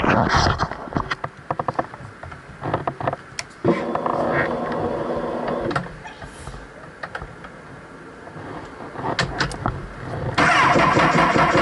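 A 2012 Honda CBR1000RR being tried on a flat battery. Rapid clicking comes first, then a steady whirr for about two seconds. After a few scattered clicks, a louder burst of cranking comes near the end.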